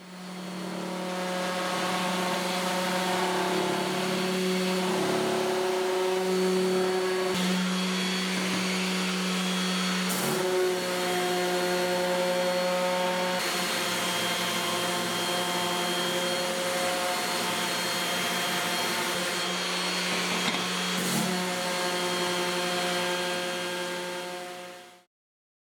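A small electric motor running steadily, a constant hum over a hiss. It wavers briefly in pitch a few times, with a couple of light knocks, then cuts off suddenly near the end.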